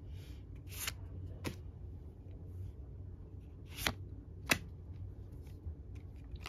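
Trading cards sliding against each other as a stack of Pokémon cards is flipped through one at a time: four short swishes, two about a second in and two more about four seconds in, over a faint low room hum.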